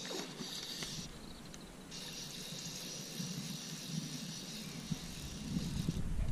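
A fly reel's click ratchet buzzing as line runs through it while a hooked fish is played: a short burst in the first second, then a longer steady stretch from about two seconds in to near the end. A low rumble builds toward the end.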